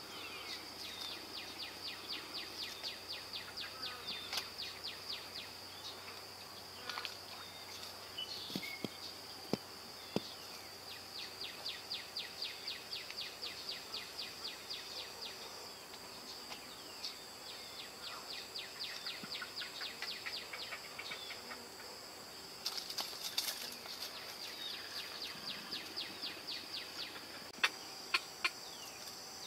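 Outdoor insect chorus: a steady high-pitched buzz with stretches of pulsing chirps repeating a few times a second, and a few sharp clicks now and then.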